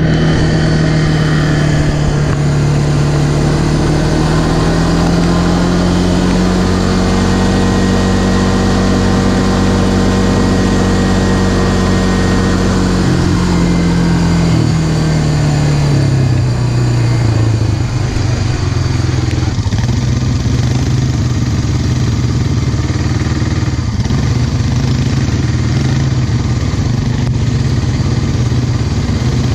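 A Honda ATV's engine running under way, heard from the rider's seat. Its pitch climbs over the first several seconds and holds, drops as the machine slows around the middle, then runs steady.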